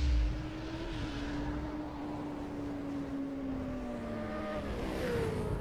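Motorcycle engine sound effect for an animated intro: a low thump at the start, then a steady engine note that slowly sinks in pitch, rising and falling again briefly near the end.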